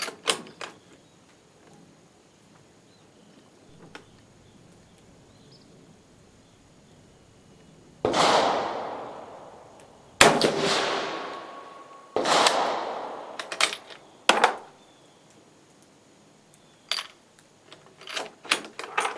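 Three rifle shots about two seconds apart from a converted 8mm Carcano M38 firing cast-bullet loads, each report trailing off in a long fading echo, with lighter sharp clicks and clacks between and after them.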